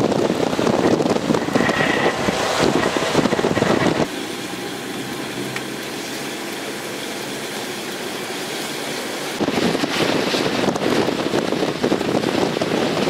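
Blizzard wind buffeting the microphone as a loud, gusty rush. About four seconds in it drops abruptly to a quieter, steadier hiss, and it comes back full about five seconds later.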